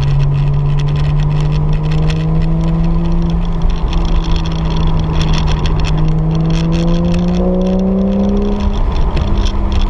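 Porsche 911 GTS flat-six engine heard from inside the cabin, pulling with a slowly rising note under steady acceleration, over constant road noise. The note shifts briefly near the end.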